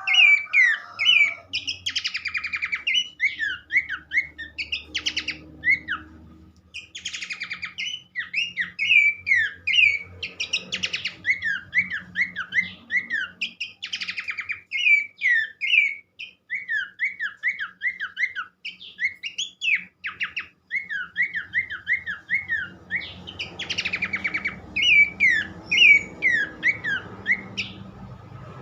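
Pelanduk semak (Horsfield's babbler) singing on and on: fast runs of repeated rising-and-falling whistled notes, broken every few seconds by short harsh, buzzy rattling calls.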